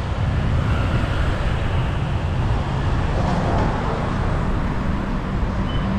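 Street traffic noise: a steady rumble of passing vehicles.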